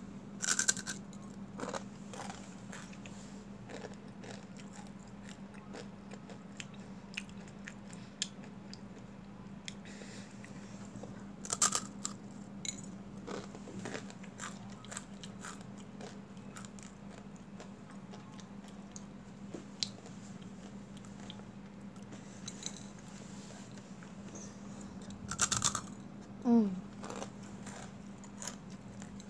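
Crunching and chewing of a dry, crispy instant-noodle snack (Mamee Monster ghost pepper), with scattered small crackles and a few louder bites, about a second in, about twelve seconds in and near the end. A steady low hum sits underneath.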